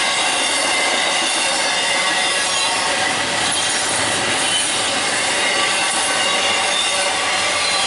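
Intermodal freight cars of a CSX train rolling past on the rails: a steady, unbroken grinding rush of steel wheels on track, with faint high wheel squeal running through it.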